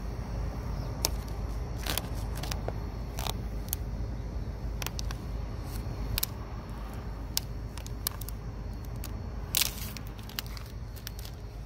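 Clear plastic transfer tape crinkling and crackling in irregular sharp clicks as a vinyl decal is rubbed down and the tape is peeled off, the loudest crackle near the end, over a steady low outdoor rumble.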